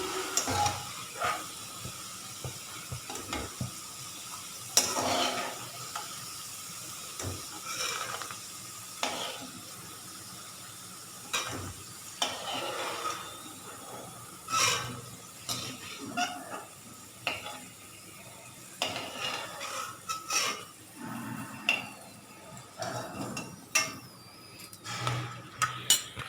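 Metal spoon scraping and clinking against a frying pan as fried potato pieces are lifted out of hot oil, with the oil sizzling steadily underneath. The scrapes and clinks come irregularly, a few of them sharper and louder.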